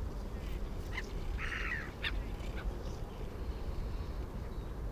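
A single short, harsh bird call about a second and a half in, over a steady low rumble.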